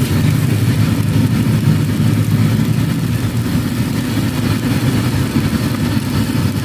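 Gas wok burner running at full flame with a steady low roar under a large wok of frying vegetables.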